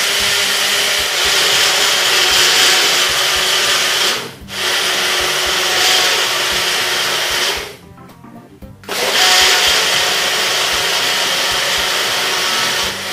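Small personal blender's motor running at full speed, whirring as it mixes panna cotta powder into milk in its cup. It runs in three stretches, dropping out briefly about four seconds in and stopping for about a second near eight seconds before starting again.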